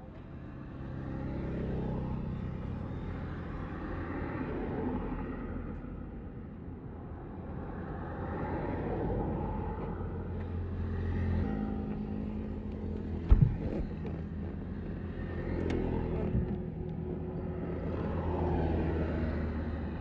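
A Yamaha MT15's single-cylinder engine runs through an SC Project full-system exhaust while riding, its revs rising and falling again and again as it accelerates and eases off. A sharp thump stands out about two-thirds of the way through.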